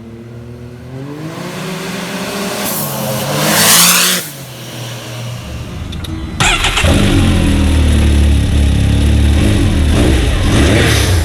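Can-Am Maverick X3 Turbo side-by-side engine climbing in revs, with a loud rushing hiss near four seconds that cuts off sharply. After a short lull, the engine comes in suddenly loud and keeps running hard at steady revs.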